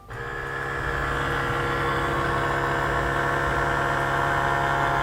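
Parkside PDR 12 A1 battery-powered portable pressure washer switched on, its electric pump motor starting up and then running at a steady, even hum, quite quiet.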